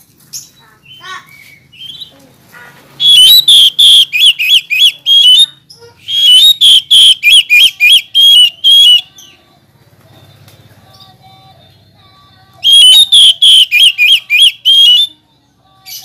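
Oriental magpie-robin (kacer) singing: three loud bursts of rapid, repeated whistled notes, about four a second, each note rising and falling in pitch, with short pauses between the bursts.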